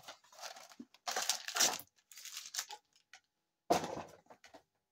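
Cardboard blaster box of football card packs being torn open, its flap ripping and the foil packs inside rustling and crinkling. A sudden louder clatter about three-quarters of the way through, as packs spill out onto the desk.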